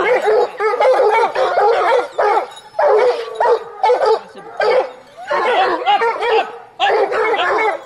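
A pack of boar-hunting scent hounds giving tongue, many voices baying and yelping over one another in runs with short pauses. The hounds have just been released on the boar's track.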